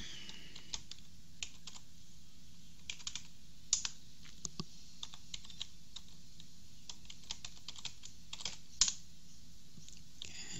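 Computer keyboard being typed on: short runs of sharp key clicks with pauses between them, over a steady low hum.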